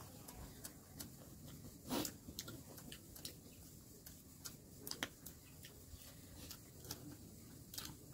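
Faint, irregular clicks and smacks of someone eating chicken biryani, with a louder smack about two seconds in.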